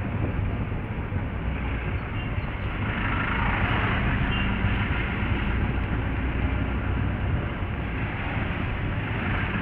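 Engine and road noise of a car driving along a street, heard from inside its cabin: a steady low rumble that swells for a couple of seconds near the middle.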